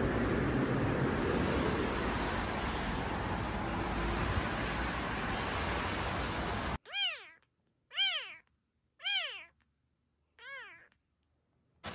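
A steady rushing noise that cuts off suddenly about seven seconds in. Then a calico kitten mews five times, about once a second, each mew rising and then falling in pitch.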